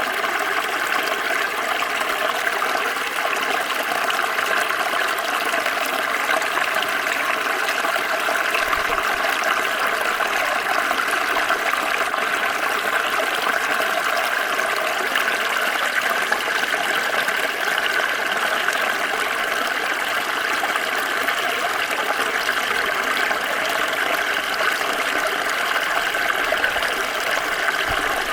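Small stream flowing steadily, a continuous rushing and splashing of water over stones.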